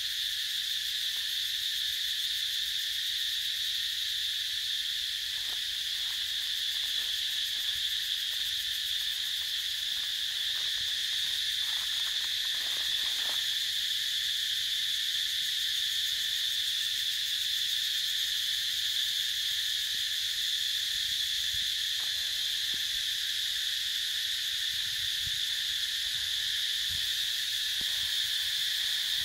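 Steady, high-pitched drone of a forest insect chorus, holding an even level with no breaks.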